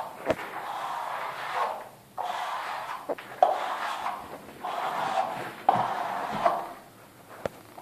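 Nela Superflex flexible plastering trowel scraping across a plastered wall in a series of sweeping strokes about a second long, several of them starting with a sharp tap as the blade meets the wall.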